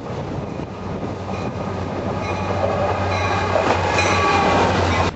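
Diesel locomotives of a Canadian National freight train passing close at speed: a steady engine drone and rumble that grows louder as they go by, with thin high steady tones over it from about two seconds in.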